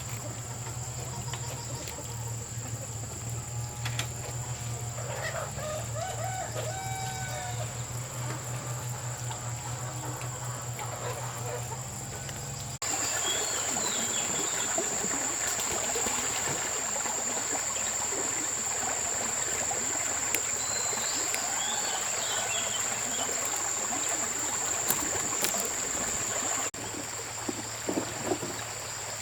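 Chickens clucking and calling, with a rooster crowing, over a steady high-pitched buzz; the background changes abruptly twice.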